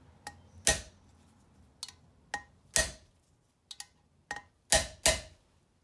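Hammer strikes on a valve spring retainer of an International 152 engine's cylinder head, about eight sharp metallic blows with a short ring, four of them harder, meant to seat a retainer that sits unevenly on its keepers.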